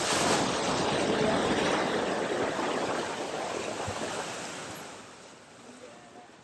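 Rushing, splashing water at a flooded ford, starting suddenly and fading away over the last couple of seconds.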